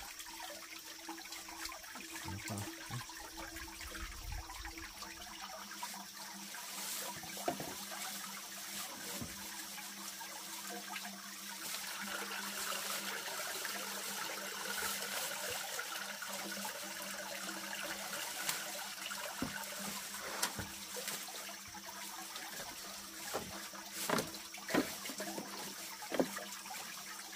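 Water running and trickling steadily, with a few sharp knocks or clicks in the second half.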